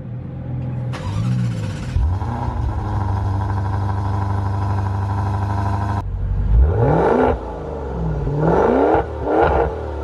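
Maserati Levante Trofeo's Ferrari-built 3.8-litre twin-turbo V8 running through its quad exhaust, with a couple of light blips. After a sudden change about six seconds in, it is revved sharply three times.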